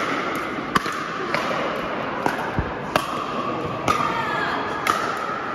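Pickleball paddles striking a plastic pickleball in a rally: six sharp pocks about a second apart, with one dull thud about midway, over steady background noise.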